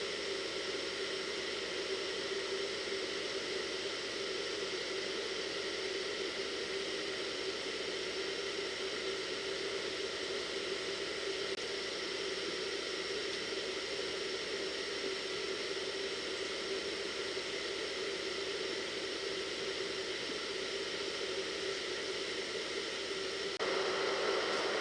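Hair dryer blowing steadily, a continuous fan-and-air noise with a steady hum. It suddenly gets louder near the end.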